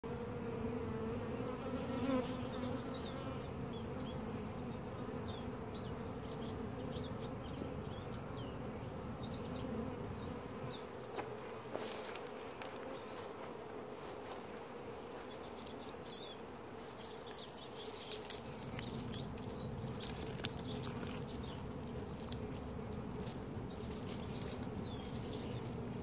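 A honeybee swarm buzzing: a steady low hum of many bees on the wing around the cluster as it moves into a nuc box.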